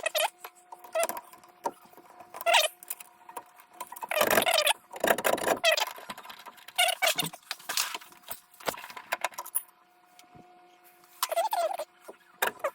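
Irregular metallic rattles, clinks and squeaks from tools and parts being handled while a furnace's draft inducer blower is taken apart. The loudest bursts come a few seconds in, over a faint steady hum.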